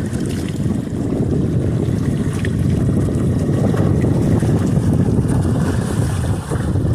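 Wind buffeting the microphone aboard a sailboat sailing in a side wind, a steady low rushing with water moving past the hull.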